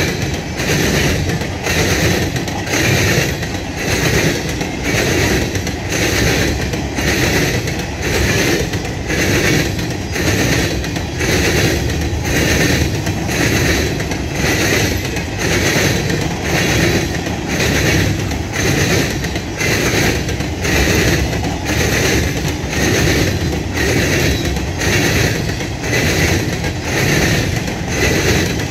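Empty Herzog hopper cars of a freight train rolling past, wheels clattering in a steady rhythm of about three beats every two seconds over a continuous rumble.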